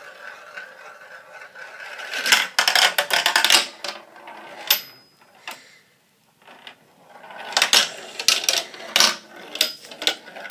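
Marbles running through a marble run: a steady rolling rattle, then bursts of rapid clacks as marbles knock along the track and drop. One sharp strike about four and a half seconds in rings briefly.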